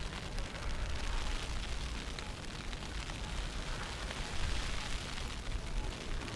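Wind buffeting the microphone in a snowstorm: a steady rushing noise with a deep rumble, sprinkled with small ticks.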